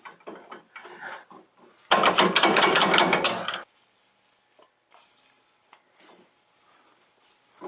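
A rapid run of metallic clicking and rattling, about nine clicks a second, starting about two seconds in and lasting about a second and a half. It comes from hand tools working on metal at the transmission tailshaft, followed by a few faint clinks.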